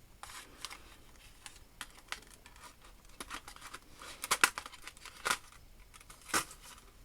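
Handling noise from a small drawing tool and paper: scattered light clicks and rustling, with a few sharper clicks in the second half.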